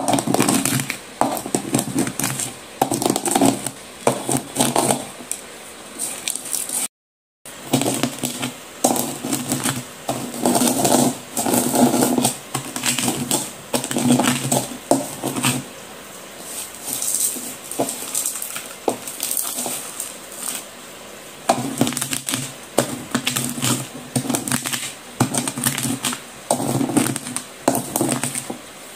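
Broken slate pencil pieces crunching and grating as they are pressed and ground with a pestle in a bowl, in irregular bursts of gritty crackling. The sound cuts out completely for a moment about seven seconds in.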